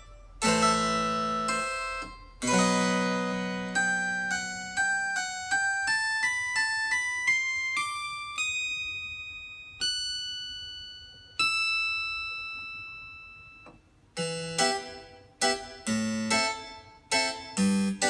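Yamaha PSR-295 portable keyboard played with a piano-like voice. Two chords come first, then a run of single notes that climbs in pitch. Two long notes ring and fade, and quicker chords start about fourteen seconds in.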